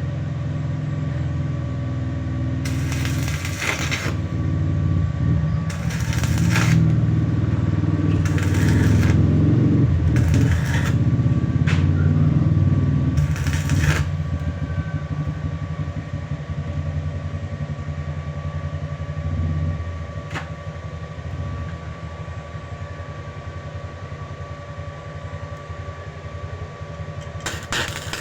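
Arc welding in short bursts: about six separate spells of crackling hiss, each lasting about a second, over a steady low electrical hum.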